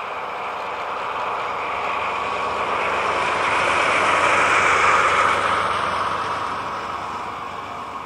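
A vehicle passing close by, unseen: a steady rushing noise that builds to a peak about five seconds in and then fades away.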